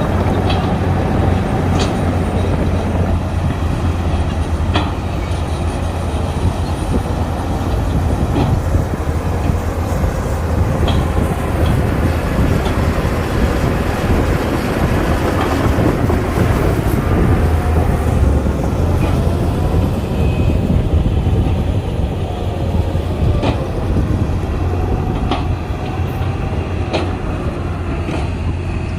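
Shantui DH17C2 crawler bulldozer's diesel engine running steadily, with scattered clanks and knocks from its steel tracks and blade at work.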